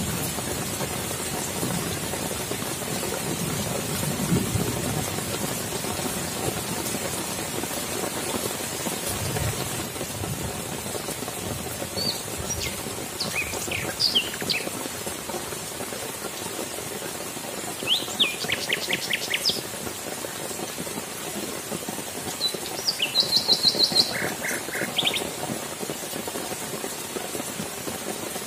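Steady rain pouring on waterlogged grass and puddles, with a couple of faint low rumbles of distant thunder in the first ten seconds. From about halfway on, birds call through the rain: scattered chirps, then quick runs of repeated notes.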